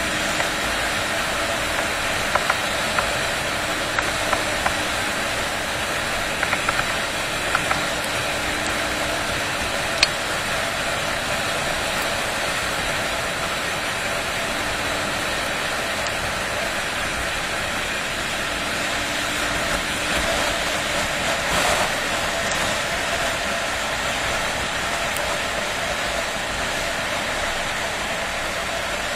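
Steady rush of riding noise from a Honda XR250 single-cylinder motorcycle at cruising speed: wind on the microphone over the engine running evenly, with a few faint clicks in the first third.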